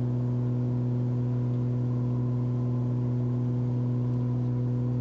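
Steady drone of a Cessna 340's twin piston engines and propellers in climb, heard inside the cabin: an even, low hum with no change in pitch.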